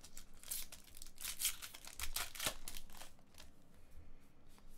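Foil wrapper of a trading card pack crinkling and tearing as it is ripped open by hand: a run of short, crackly rustles over about three seconds that dies down near the end.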